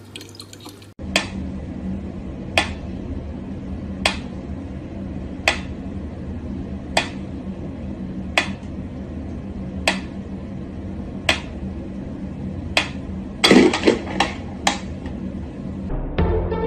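Mechanical pyramid metronome ticking slowly and evenly, one sharp tick about every second and a half. Near the end comes a short cluster of louder knocks and rattles.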